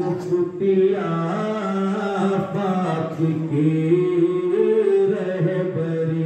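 Male voice chanting a devotional recitation in slow, long held notes.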